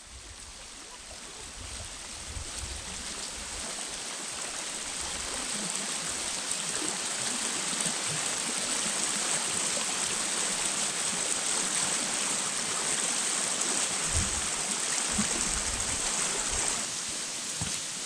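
Shallow rocky stream running over stones: a steady hiss of flowing water that swells over the first few seconds and eases off a little near the end.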